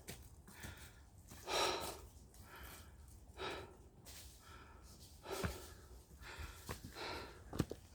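A hiker breathing heavily from the uphill climb, a loud breath about every two seconds, with a couple of sharp knocks near the end.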